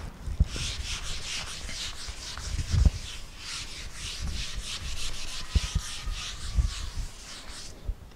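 Handheld whiteboard eraser wiping a whiteboard clean: quick back-and-forth rubbing strokes, about four a second, that stop shortly before the end. A few low thumps come with the strokes.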